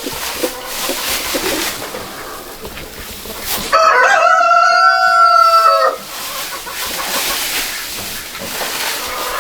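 A rooster crowing once, a single call of about two seconds starting nearly four seconds in, over a steady background hiss.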